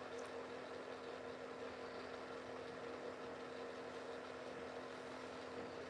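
Quiet room tone with a faint, steady electrical hum.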